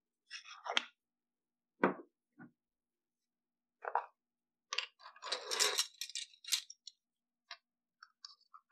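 Kitchen utensils clinking and knocking against a glass mixing bowl as a ring of plastic measuring spoons is handled: a string of separate knocks, with a denser clatter about five to six and a half seconds in and light ticks near the end.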